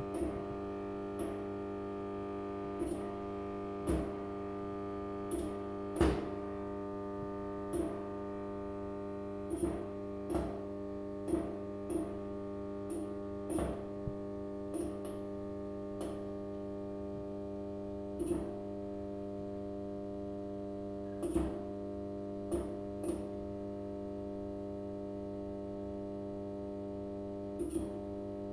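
Fluorescent lamp buzzing: a steady electrical hum with many fixed overtones, broken by short irregular clicks or pings every second or two, each ringing briefly.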